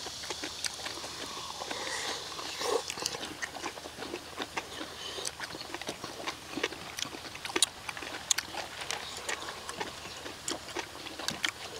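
Close-miked eating sounds: people chewing, slurping and smacking on rice and soybean-paste stew, with frequent short, sharp clicks of chopsticks and spoons on metal bowls.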